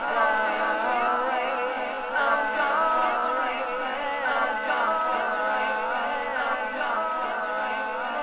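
Music: several wordless, choir-like voices holding slowly moving harmonies, with no bass or drums.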